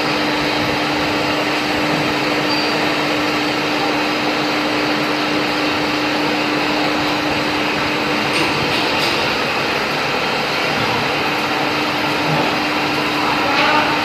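CNC lathe running: a loud, steady machine noise with a steady hum that stops about eight seconds in and returns near the end, with a few short clicks.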